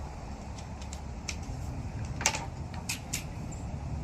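A few light clicks and taps from handling muzzleloader loading gear, the loudest a little past the middle, over a steady low background rumble.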